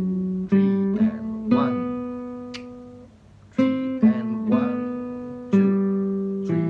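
Classical nylon-string guitar plucked with the fingers, playing a slow single-line melody. Notes start sharply and ring out, some held for a count or more, with a brief gap about three seconds in.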